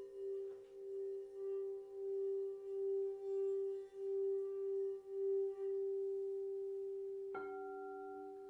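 Frosted quartz crystal singing bowls ringing: one bowl holds a steady pure tone that swells and dips about twice a second as a wand is worked around its rim. The swelling stops and the tone slowly fades, then a bowl is struck near the end, adding a lower tone that rings on.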